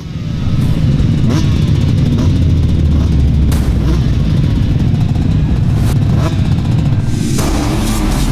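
Several motocross bikes' engines revving hard, pitch rising and falling, with a few sharp cracks along the way; about seven seconds in the sound turns brighter as a pack accelerates off the start.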